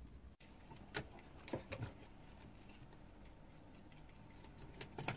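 A pet prairie dog knocking things about instead of eating: scattered sharp clicks and knocks, a few about a second in and a louder cluster near the end.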